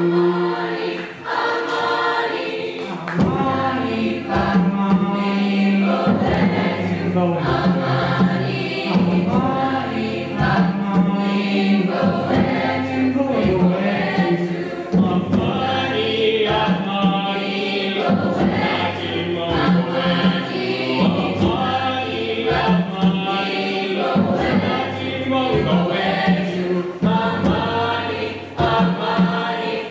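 High school chorus singing, with a solo voice at the microphone out front. Lower voices come in about three seconds in.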